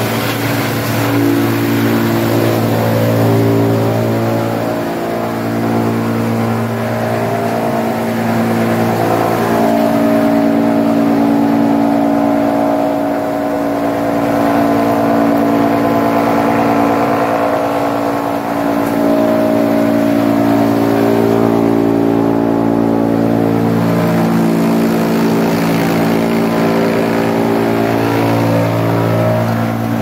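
Drum wood chipper running steadily while wood is fed into it on its conveyor: a loud, even machine hum whose tone shifts every few seconds.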